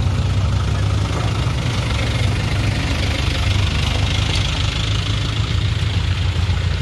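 Off-road car's engine running steadily with a constant low drone, without revving.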